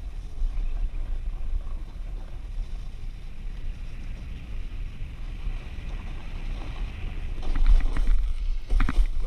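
Snowboard sliding downhill on packed snow, its edge scraping with a steady hiss, under low wind rumble on the action camera's microphone. Near the end come a few louder crunching scrapes as the board ploughs into deep soft snow.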